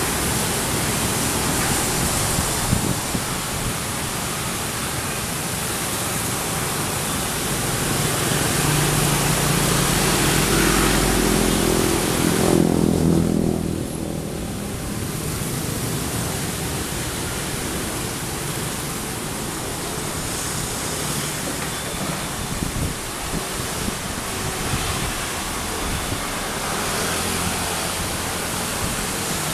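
Komatsu long-reach excavator's diesel engine working under load, its note rising and loudest around the middle, under a steady loud hiss.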